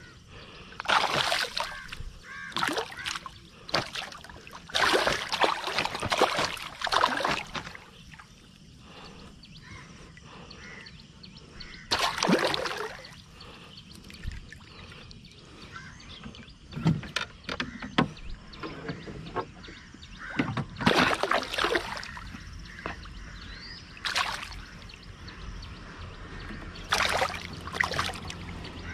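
Water splashing in short irregular bursts every few seconds as a hooked mangrove red snapper, snagged in a sunken branch, is hauled up and thrashes at the surface beside a wooden boat.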